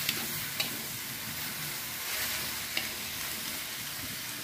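Napa cabbage and carrot sizzling in an aluminium wok as they are stir-fried with a metal spatula, with a few sharp clinks of the spatula against the pan. The vegetables are just starting to wilt.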